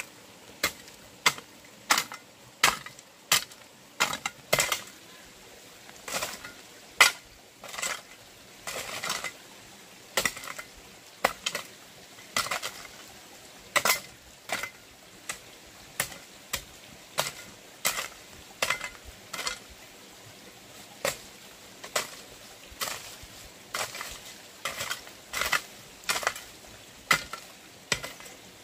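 A long series of sharp knocks, about one or two a second and irregularly spaced, with a few short scraping or rustling noises in between, typical of steady hand work such as chopping.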